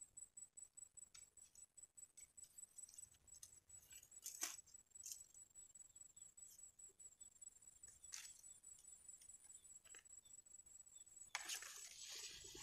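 Near silence: a faint high steady whine throughout, a few soft scattered clicks, and a short stretch of rustling from handling near the end.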